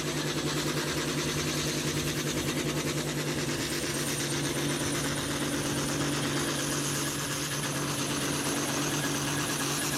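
Blue Ford farm tractor's diesel engine running flat out under load as it drags a weight-transfer pulling sled: a steady, unchanging drone, with a faint high whine joining about four seconds in.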